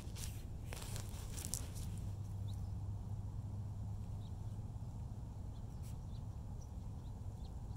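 Outdoor ambience: brief rustling in the first two seconds, then a steady low hum with a few faint, short, high chirps scattered through.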